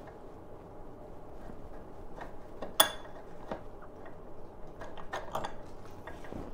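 Small metallic clicks and clinks as a loosened nut and bolt are worked free by hand from the rear suspension dog-leg linkage, with one sharper ringing metal clink about three seconds in.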